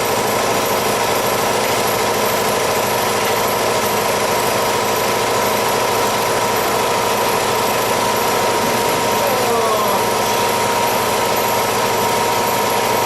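A machine running loudly and steadily, an unchanging dense din with a constant hum.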